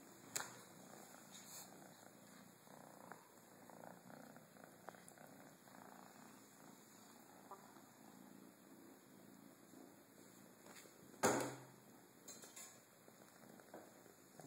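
A kitten purring faintly and steadily, with a few light clicks and one sharp thump about eleven seconds in.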